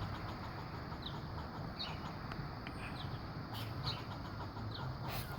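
Squirrel outside a window giving short, high chirping calls, repeated about once a second.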